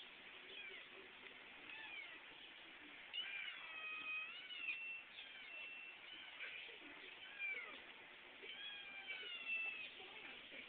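Young kitten meowing again and again in high, thin cries, some short and some drawn out, which the owner takes for a plea for contact rather than hunger.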